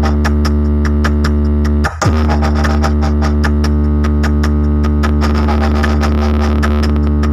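Electronic DJ sound-test music: a loud, steady synthesizer bass drone under evenly repeating clicky beats, with a short falling sweep and a brief dip about two seconds in.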